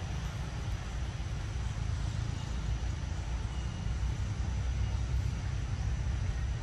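Steady low outdoor rumble with a faint hiss and no distinct events.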